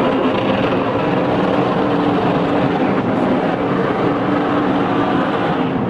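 NASCAR Sprint Cup stock car's V8 engine held at steady high revs during a burnout, with the rear tyres spinning against the pavement.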